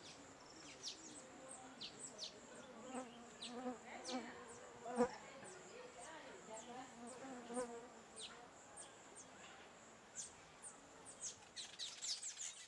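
Faint outdoor ambience: a steady high-pitched insect drone with short, downward-sweeping bird chirps repeating irregularly throughout, and a single sharp click about five seconds in.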